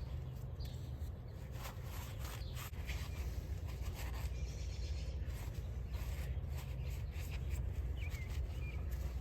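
Scattered scraping and rubbing of hand-cleaning on a grimy engine part, over a steady low background rumble, with a couple of faint bird chirps.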